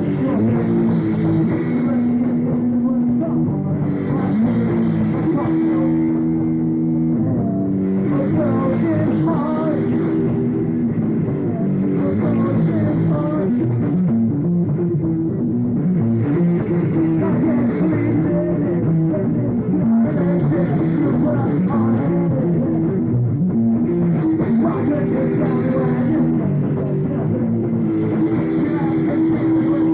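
Live punk-rock band playing: electric guitar chords, bass and drum kit, heard loud and muffled.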